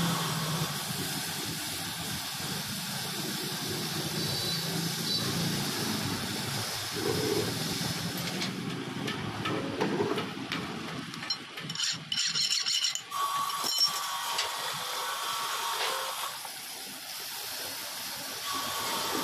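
Red-hot steel hammer head being quenched in a bucket of water for heat treatment: a steady sizzling hiss and bubbling as the glowing metal boils the water. There are a few sharp clicks about midway, and the hiss comes back strongly as the hammer is plunged back in near the end.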